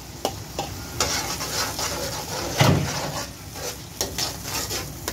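Tomato paste sizzling as it hits hot oil and whole spices in an aluminium pot. The sizzle strengthens about a second in, with clicks and scrapes of a slotted metal spoon stirring, and one louder knock about two and a half seconds in.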